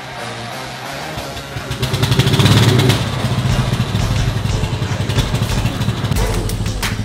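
Ride-on lawn mower's small engine running as the mower drives in, getting louder about two seconds in, with background music.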